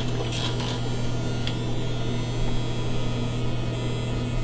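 Rotary tattoo machine pen running with a steady low buzz while it works pigment into the skin, with a few faint clicks about half a second and a second and a half in.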